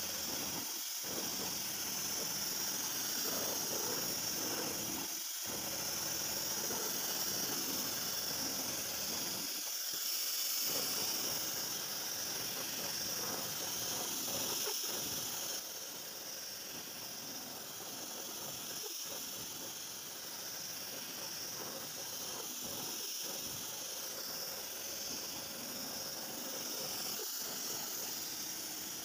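CNC vertical machining center milling a pocket in a metal block with an end mill: a steady high hiss from the spindle and cut. The lower part of the sound dips briefly about every four seconds, and the whole sound gets a little quieter just past halfway.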